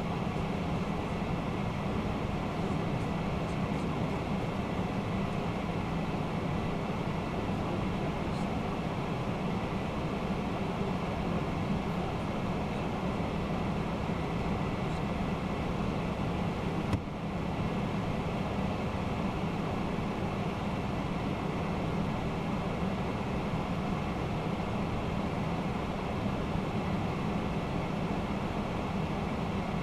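Steady flight-deck noise of a Boeing 767-300ER in flight: an even rush of air and engine hum with a low drone. There is a brief click and momentary dip about halfway through.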